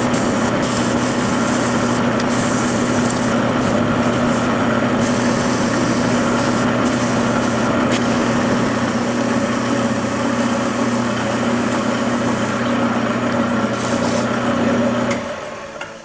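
Wood lathe running steadily with its motor humming under the hiss of a tool cutting a spinning ipe handle blank. The lathe stops about a second before the end, and the sound falls away.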